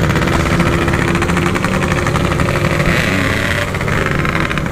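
Yamaha RX-King's two-stroke single-cylinder engine running steadily while riding, through a stock-style 'standart belek' Packing Power aftermarket exhaust.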